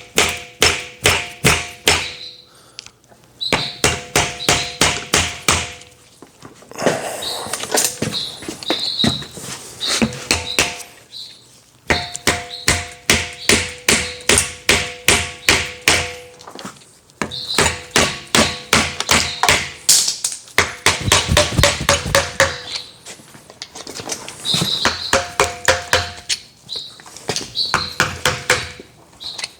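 Rapid hammer blows on the steel gland collar of a slewing cylinder, struck in runs of a few seconds with short pauses between them, the metal ringing under the hits as the collar is driven loose.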